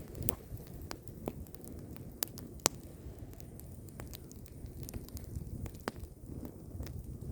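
Crashed RC helicopter burning: a low, steady fire noise with scattered, irregular crackles and sharp pops.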